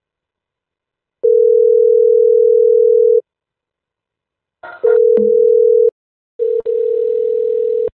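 Telephone ringback tone on an outgoing internet call: a steady ring about two seconds long, then after a gap the same tone returns twice more, shorter and mixed with line noise and clicks as the call connects.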